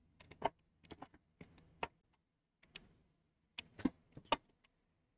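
Scattered light clicks and taps, about a dozen short ones spread over five seconds and none of them loud, from hands or a camera moving over the opened microwave.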